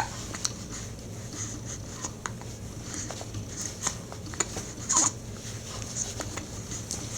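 A seven-week-old baby's hiccups: a few short, sharp hics spaced irregularly, the strongest right at the start and about five seconds in, over a faint steady room hum.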